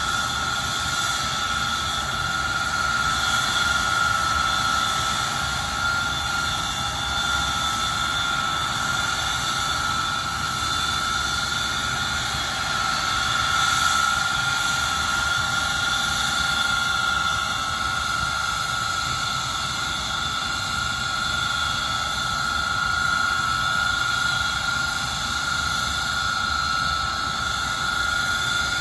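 Avro Vulcan XM655's Rolls-Royce Olympus turbojets running steadily on the ground: a high, steady whine over an even rush of exhaust noise.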